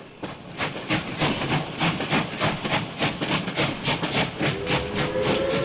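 Steam locomotive chuffing at a steady beat of about four to five exhaust puffs a second. Its whistle starts to blow about four and a half seconds in.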